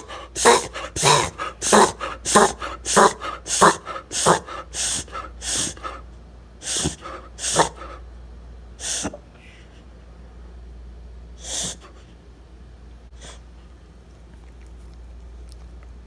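Beagle reverse sneezing: a fast run of loud snorts through the nose, about three every two seconds for the first six seconds, then a few spaced-out ones that stop about thirteen seconds in.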